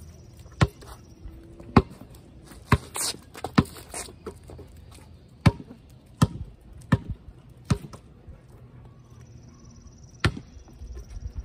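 Basketball bouncing on a concrete driveway: about ten sharp, single bounces at uneven intervals, roughly one a second, with a pause of a couple of seconds before the last one.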